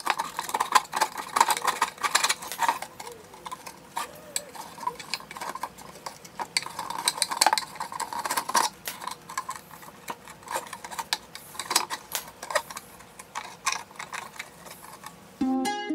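Irregular small clicks, taps and scraping of hand work on parts, like tools or screws being handled. Ukulele-like plucked music starts just before the end.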